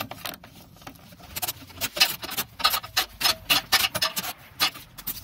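Hand ratchet clicking as it drives a T25 Torx bit back and forth, backing out a bolt. The clicks come as a quick, uneven run, busiest after the first second or so.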